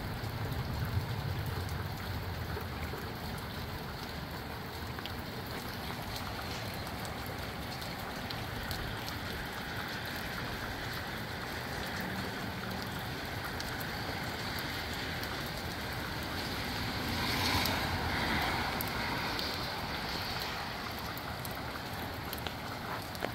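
Steady moderate rain falling, heard as an even hiss, with a louder rushing swell about three-quarters of the way through.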